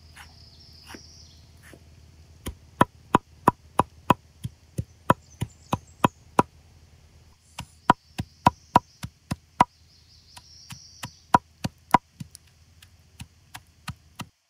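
A large knife chopping fresh green herbs on a wooden cutting board: the blade knocks on the board at about three strokes a second, soft at first and sharper from a couple of seconds in, with a brief pause past the middle before the chopping resumes.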